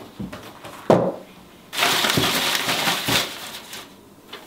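A sharp knock about a second in as the cardboard box's lid is taken off, then about two seconds of paper slips rustling and crinkling as a hand rummages in the box to draw one out.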